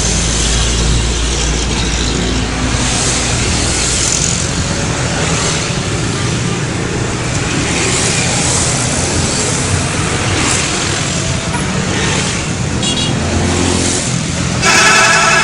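Steady roadside traffic noise, with heavy vehicle engines running past. Near the end, a bus's multi-tone 'telolet' horn starts playing its warbling tune.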